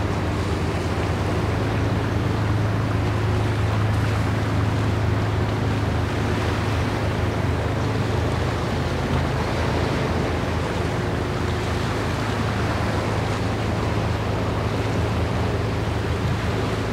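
Low, steady engine drone of passing ships carrying across the water, over a steady wash of wind and waves.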